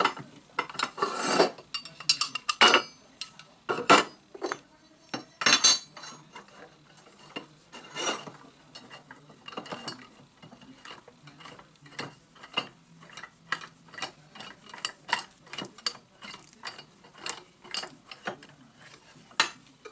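Light metallic clicks and clinks of aluminium extrusion pieces being handled and a hex driver working the bracket screws. A few louder knocks in the first seconds, then a denser run of small quick clicks from about nine seconds in.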